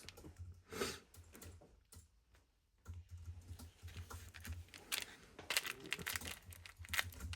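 Faint handling sounds of a small box of watch jewels: a scatter of small irregular clicks and taps, with a low rumble of handling from about three seconds in.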